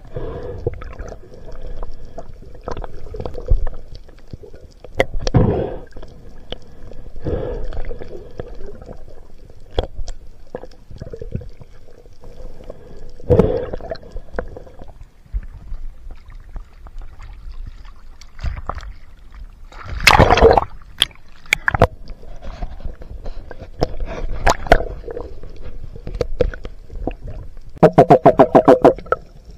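Underwater sound of spearfishing: irregular bubbling and gurgling bursts and knocks over a faint steady hum. The loudest burst comes about two-thirds of the way through, and a rapid run of clicks comes near the end.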